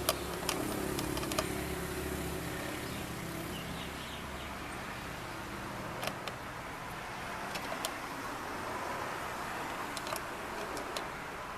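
Scattered sharp clicks and knocks of hand tools and plastic parts being worked on a car's rear door lock and its cover, over a low hum that fades out about four seconds in.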